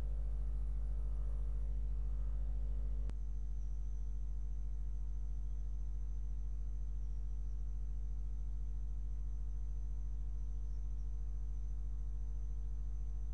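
Steady low electrical mains hum with its overtones, with a single sharp click about three seconds in, after which a faint high whine runs on under the hum.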